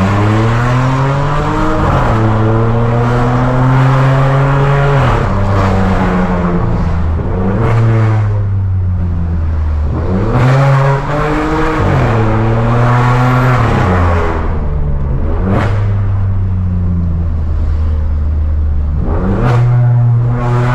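Volkswagen Virtus 1.0 TSI three-cylinder turbo engine accelerating through repeated quick upshifts, its pitch climbing and dropping sharply at each gear change. The exhaust is loud and raw through a stainless downpipe and a straight catback with no muffler.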